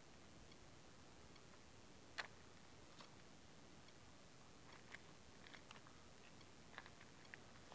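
Near silence, with a few faint, sharp ticks scattered through, the clearest about two seconds in.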